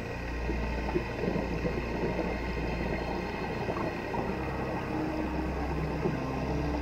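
Distant motorboat engines droning steadily, heard through the water during a scuba dive, with the gurgle and crackle of a diver's exhaled regulator bubbles.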